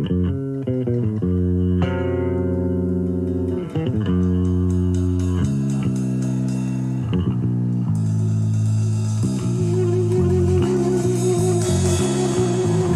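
Instrumental band music led by an electric bass playing sustained low notes that change every second or so. Cymbals come in about eight seconds in, and a higher note is held over the bass near the end.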